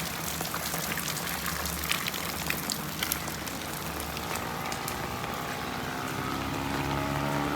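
Heavy monsoon rain hissing steadily, with sharp drips and splashes of drops a couple of seconds in. About halfway through, an approaching truck's engine rises in, growing louder with its pitch climbing slowly.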